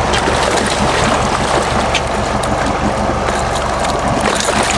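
Fishing boat's engine idling steadily, with water sloshing and splashing against the hull as a hooked jack is grabbed at the boat's side.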